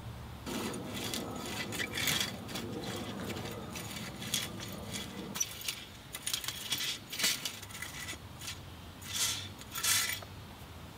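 Dry granules shaken from a bag, pattering and crackling onto soil and stones. About five and a half seconds in this gives way to a rake scraping through the dirt and gravel in separate strokes, the last two the loudest.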